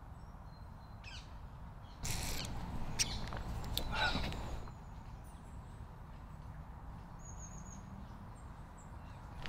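Outdoor ambience: birds calling over a steady low rumble. A louder rustling stretch with a call in it comes a couple of seconds in, and faint high chirps come near the end.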